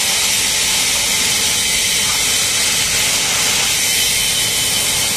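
Compressed air hissing steadily while a wide 180-section motorcycle tyre is being inflated on a tyre changer. The air is escaping past the bead because the tubeless tyre will not seat on the rim and no pressure builds.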